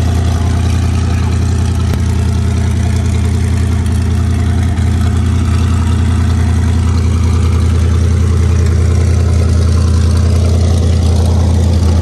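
A vehicle engine running steadily with a loud, even low hum.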